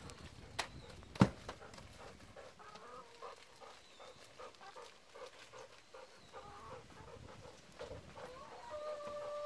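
Hen clucking in short repeated calls, which turn into longer held calls near the end. Two sharp clicks come in the first second and a half, the second of them the loudest sound.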